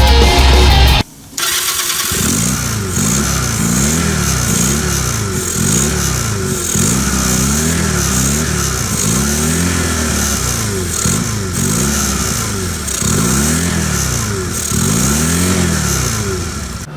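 Honda Rebel 250 (CMX250C) motorcycle's parallel-twin engine running and being revved repeatedly, its pitch rising and falling about once a second.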